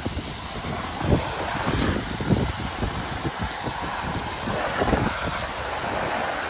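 Wind buffeting the microphone outdoors: irregular low thumps over a steady hiss.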